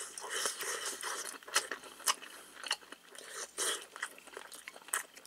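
A person chewing microwave-warmed smoked pork belly close to the microphone: wet mouth smacks and irregular sharp clicks, several a second.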